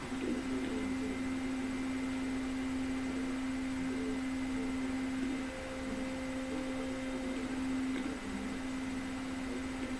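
A steady, low humming tone with a fainter overtone, held almost unbroken, dipping slightly around the middle and wavering lower near the end.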